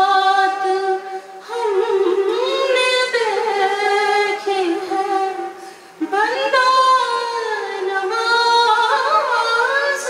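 A woman singing solo and unaccompanied into a microphone: long held notes with wavering, ornamented turns, broken by short breaths about a second in and again about six seconds in.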